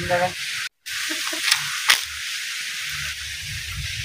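Outdoor field ambience: a steady high hiss with a low rumble underneath that grows in the second half, broken by a brief dropout under a second in and two sharp clicks about a second and a half and two seconds in.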